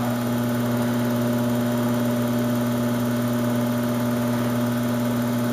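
Electric pottery wheel running with a steady, even motor hum.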